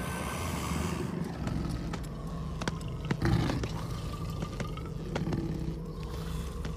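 Low, steady rumbling sound-effect drone with scattered sharp clicks and one louder dull thump about three seconds in.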